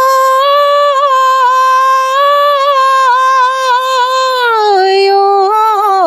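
A woman singing unaccompanied the drawn-out opening of a Tiwa folk song. She holds one long high note, then drops a little before five seconds in to a lower held note with small wavers.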